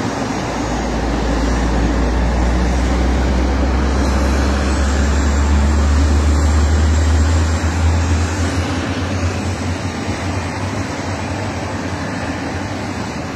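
Jet aircraft engines running: a loud steady rush with a deep rumble that swells over the first several seconds and then eases. A faint high whine comes in about five seconds in.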